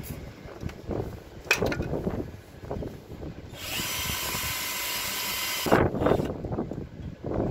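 Small battery-powered drill running steadily for about two seconds in the middle, drilling out a broken steel stud in the engine's lower balancer shaft. Irregular knocks and handling noises come before and after.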